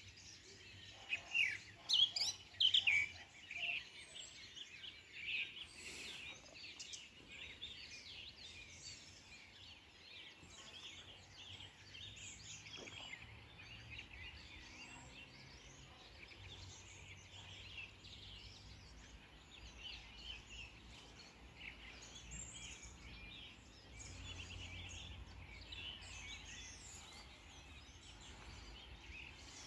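Birds calling and chirping, a dense chorus of short chirps with a few louder calls in the first few seconds.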